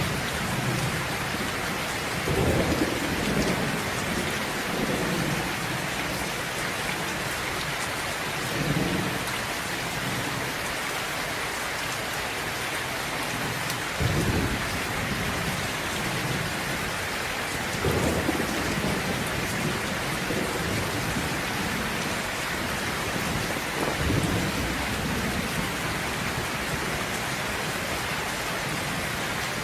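Thunderstorm: steady rain falling, with low thunder rumbling every few seconds. The sharpest cracks come about halfway through and again a few seconds later.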